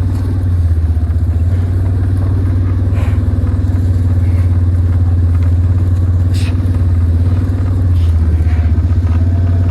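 Vehicle engine running at a steady low drone, with a few faint clicks.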